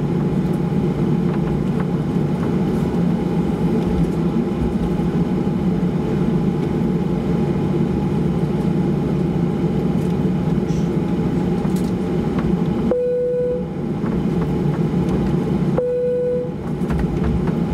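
Cabin noise inside a Boeing 737-800 taxiing: a steady low rumble from its CFM56 turbofans at taxi power and the rolling landing gear. Late on, two short steady tones sound about three seconds apart.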